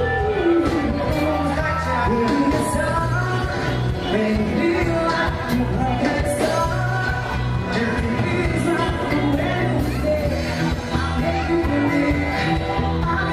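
Live band playing a pop-rock song, with a lead singer over drums and a steady bass line.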